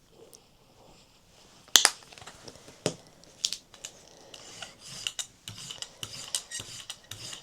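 A rubber brayer rolling acrylic paint out across a gel printing plate, a tacky crackling rasp, building from about halfway through. It is preceded by a few sharp knocks from the paint and tools being handled.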